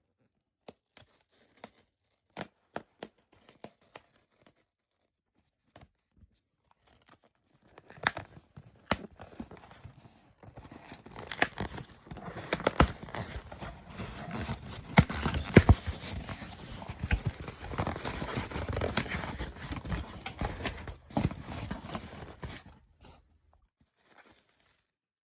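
Packaging being handled, torn open and crumpled: a few scattered clicks and rustles, then about fifteen seconds of dense crinkling and tearing with sharp crackles, which stops shortly before the end.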